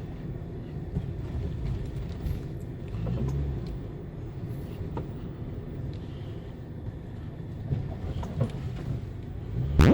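2011 Nissan Cube driving over rough road: a steady low rumble with scattered metallic taps and clunks from underneath, and one loud knock near the end. The rattling is the exhaust's first muffler, sagging out of position and striking the underbody.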